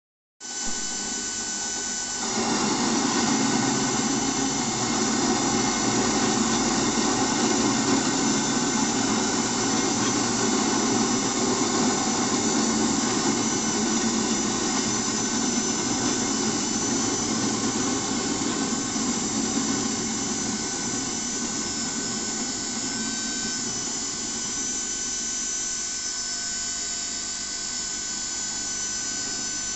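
Homemade machine tool's electric motor running steadily with a high whine; about two seconds in it grows louder and rougher and stays that way.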